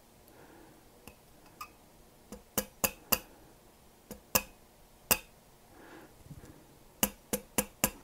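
Light mallet taps on a steel pin punch, driving the trigger-retaining pin back into a Remington 700 receiver: about a dozen sharp ticks in irregular clusters with short pauses between them.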